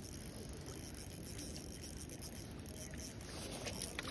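Steady low outdoor rumble, like wind on the microphone, with a few light splashes near the end as a hooked trout thrashes at the surface.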